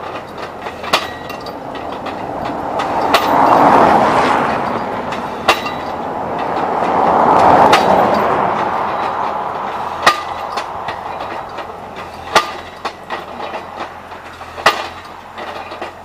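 Skid-steer-mounted pile driver at work driving a steel oil-field pipe fence post: the machine runs loudly, swelling twice, with sharp metal clanks every second or two.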